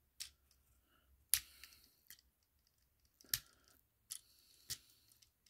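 Sharp plastic clicks and snaps from a Transformers Legacy Armada Hot Shot action figure as its parts are flipped, folded and clipped into place by hand, several separate clicks about a second apart.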